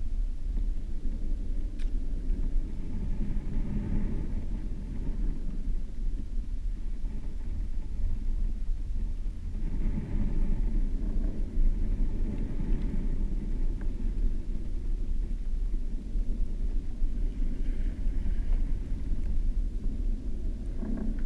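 Muffled low rumble of shallow surf water heard through an underwater camera housing on the sandy bottom, swelling now and then as the water surges.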